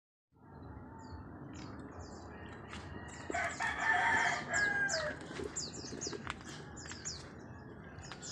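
A rooster crows once, a loud call of about a second and a half starting around three seconds in. Small birds chirp repeatedly in short falling notes throughout.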